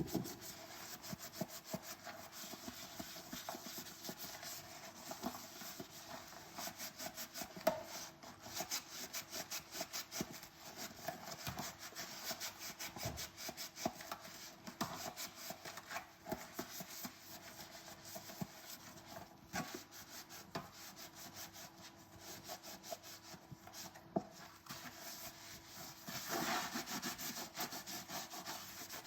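Dishes being scrubbed by hand, a steady run of quick rubbing strokes, louder for a few seconds near the end.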